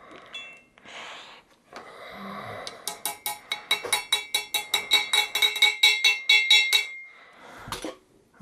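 Claw hammer gently tapping around the outer edge of a new Nachi ball bearing to seat it in the end of a treadmill rear roller tube. After a few seconds of handling noise comes a rapid, even run of light metallic taps, about six a second for about four seconds, each one ringing.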